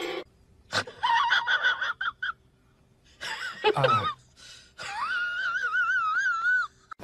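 Husky puppy whining in high, wavering cries: a short one about a second in, one that falls in pitch around three seconds, and a long wavering whine near the end.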